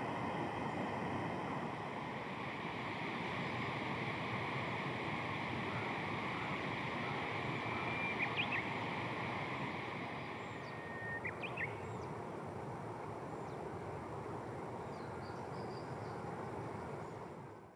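Steady outdoor background noise with a few short, high chirps about eight seconds and eleven seconds in.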